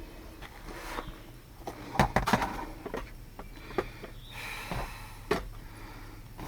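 A handful of short, sharp clicks and knocks from parts being handled, irregularly spaced, the loudest pair about two seconds in, over a low steady hum.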